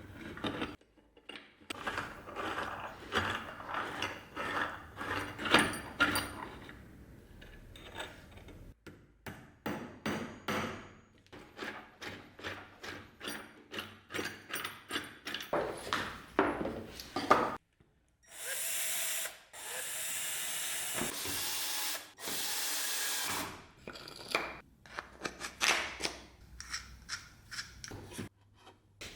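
Clicks, knocks and rubbing as wooden and metal parts are handled and fitted, a few per second. Then three stretches of steady hiss of a few seconds each, starting and stopping abruptly, followed by more clicks.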